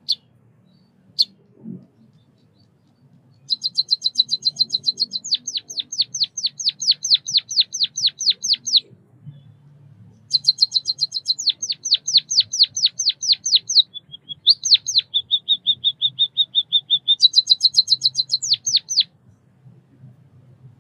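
White-headed munia singing: a couple of single high chips, then a long, fast series of high notes that changes from a buzzy trill into rapid downward-sweeping strokes. After a short pause about halfway through, the series repeats.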